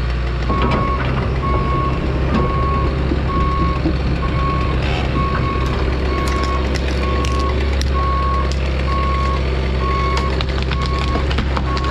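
Excavator's travel/motion alarm beeping steadily at about one beep a second over the machine's diesel engine running. A few sharp cracks come in the second half.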